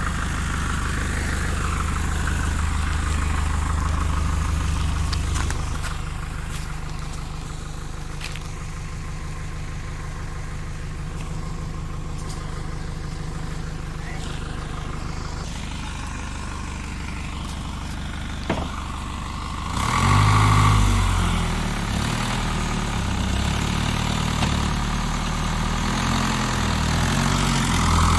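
Heavy truck engine running steadily at low revs. About two-thirds of the way through it gets louder and revs, its pitch rising and falling repeatedly as it works under load.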